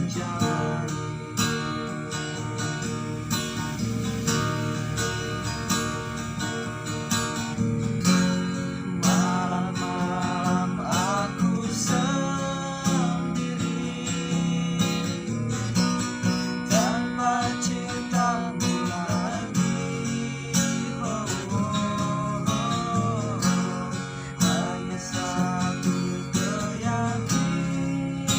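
Acoustic guitar strummed steadily, with a voice singing over it in phrases.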